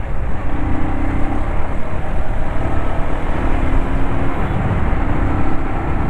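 Motorcycle riding at speed: wind rushing over the helmet microphone, with the engine's steady hum coming and going underneath.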